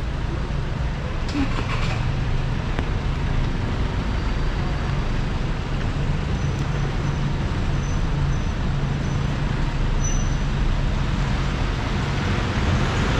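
Steady city street traffic, with the low hum of a heavy vehicle's engine running close by.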